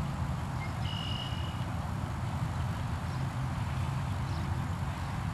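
Wind buffeting the camera microphone in an open field: a steady, unpitched low rumble, with a brief high chirp about a second in.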